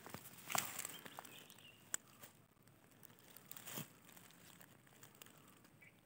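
Faint rustling and handling noise with a few short crackles, the loudest about half a second in.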